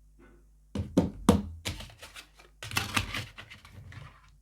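Plastic back cover of a Samsung Galaxy Grand Max smartphone being prised off by hand: a few sharp clicks and snaps about a second in, then a stretch of scraping and rustling handling.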